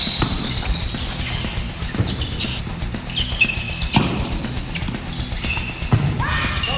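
A ball struck hard about every two seconds in a large gym, with sneakers squeaking on the wooden floor between the hits, over background music. A shout begins near the end.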